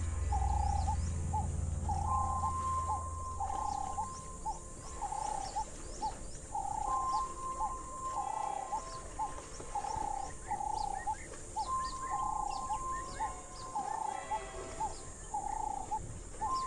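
Bird calls in the bush: one mid-pitched call repeating about once a second, with short higher chirps from other birds over it.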